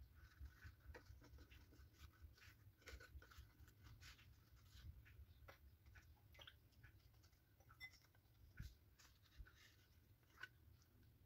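Very faint rustling and soft scattered ticks of thin lumpia (spring roll) wrappers being folded and rolled by hand on a wooden cutting board, over a low steady hum.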